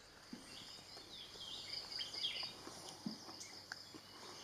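Forest ambience: a steady high insect drone, with brief bird chirps scattered through it, most of them around two seconds in.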